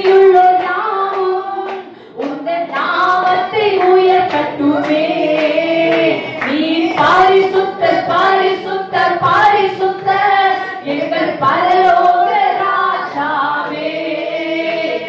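A woman singing a Tamil Christian worship song into a microphone, with held notes that slide between pitches.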